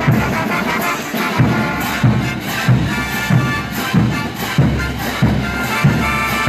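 Mexican banda brass-band music: horns playing held chords over a low bass-and-drum beat, with strong beats about every two-thirds of a second.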